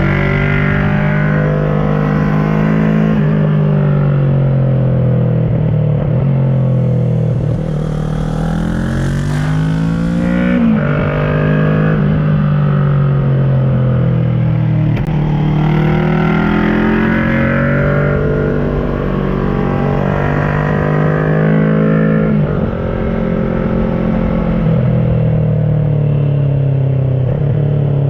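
2010 Kawasaki ER-6n's parallel-twin engine through an SC-Project carbon exhaust, pulling hard up through the revs and easing off again. Its pitch climbs and then drops several times with gear changes and throttle lifts.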